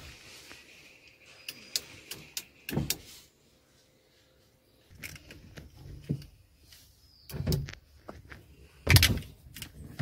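Plastic clicks and knocks of a car power window switch and its wiring connector being handled and pushed into the centre console. The knocks are scattered, with a short silent gap midway and the loudest thump near the end.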